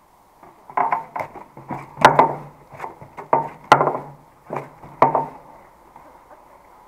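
About a dozen irregular knocks and scuffs over four seconds, sharp at times, from close handling right at the microphone.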